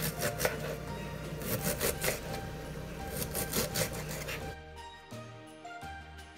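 Knife cutting vegetables on a cutting board, an irregular run of cuts and scrapes, under background music. About four and a half seconds in the cutting and room sound stop abruptly, leaving only the music.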